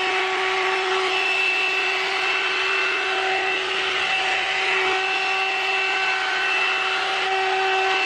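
Hot air brush (one-step hair dryer and styler) running steadily, its fan blowing with an even rush of air and a steady whine.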